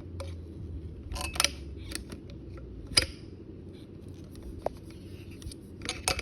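Stool base leg pieces knocking and clicking together as a leg is slid into the base hub: a handful of sharp clacks, the loudest about three seconds in.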